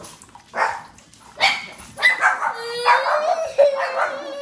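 A young girl crying after shutting her fingers in a cabinet: a few short sobs, then one long wail starting about two and a half seconds in.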